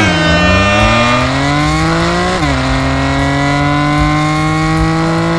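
Car engine accelerating hard after a race start. Its pitch climbs steadily, drops at a gear change about two and a half seconds in, then climbs again.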